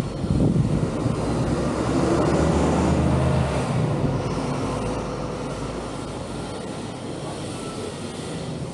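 A vehicle's low rumble that swells over the first few seconds, then eases off and fades.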